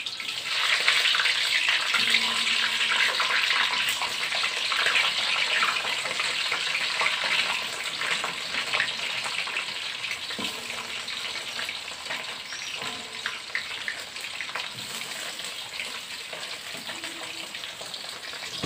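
Whole tongkol (mackerel tuna) sizzling and crackling in a shallow pool of hot oil in an aluminium wok as the fish go in with tongs. The sizzle is loudest in the first seconds and slowly dies down.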